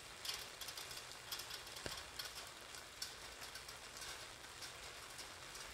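Rain falling steadily, with raindrops tapping irregularly on an umbrella overhead. One soft low thump about two seconds in.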